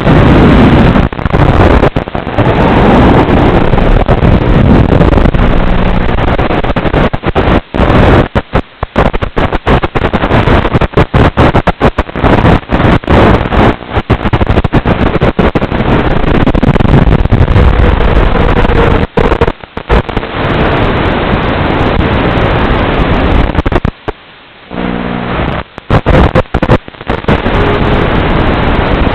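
Emax Hawk 5 FPV quadcopter in flight: its motors whine up and down in pitch under loud, distorted wind noise on the onboard microphone. The sound keeps cutting out in brief gaps, with a longer drop about three-quarters of the way through.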